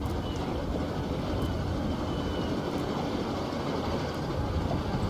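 Steady low rumbling noise of a boat under way across open flood water, with no clear engine note.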